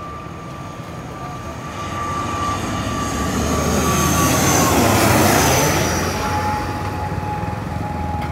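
Twin-engine turboprop airliner passing low overhead on landing approach: the engine and propeller noise swells to a peak about five seconds in, and its steady whine drops in pitch as the aircraft passes, then eases off as it heads for the runway.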